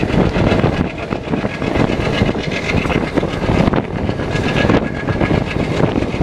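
Passenger train hauled by a rebuilt ALCO diesel locomotive running under power, a loud continuous rumble with rapid irregular beats from the engine and the rolling stock.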